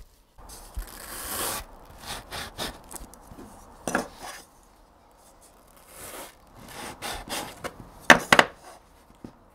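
Hands working dough on a floured wooden board: a long rubbing scrape about a second in, then a run of short scuffs and presses, the loudest near the end.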